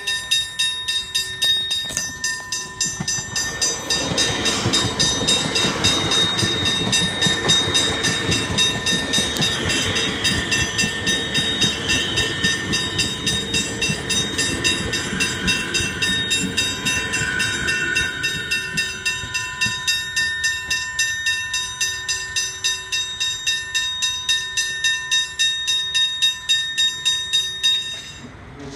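Level crossing bells ringing steadily at about two strikes a second while a Metro Siemens electric suburban train passes close by. The train's rumble and wheel noise build from a few seconds in and fade after about two-thirds of the way through, with a faint whine near the middle. The bells stop suddenly shortly before the end.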